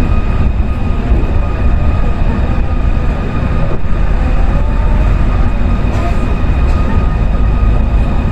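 Osaka Monorail car running along its track, heard inside the cabin: a steady low rumble with a constant high whine over it.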